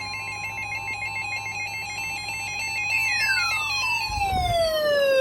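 Synthesized electronic tones: for about three seconds a fast warbling pattern of rapidly alternating beeps, then a single tone with many overtones sliding steadily down in pitch from high to low. A short low rumble sits under it about four seconds in.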